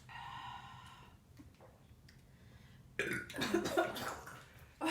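A person burping loudly, starting suddenly about three seconds in and trailing off over a second or so, after a faint high-pitched breathy sound at the start.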